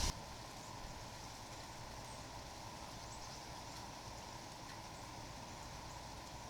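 Faint steady background hiss with a few faint, brief bird chirps.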